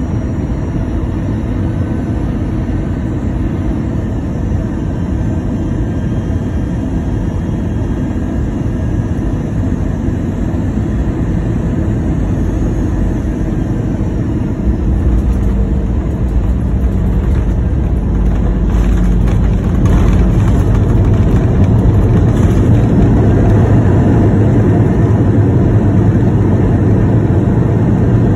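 Airbus A319 cabin noise: a steady rumble of engines and airflow that grows heavier and louder about halfway through and stays louder near the end.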